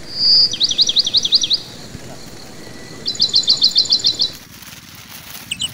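A songbird singing: a short high whistle, then a fast run of sweeping up-and-down notes lasting about a second, and a little later a second quick series of about ten sharp repeated notes, with more notes starting near the end.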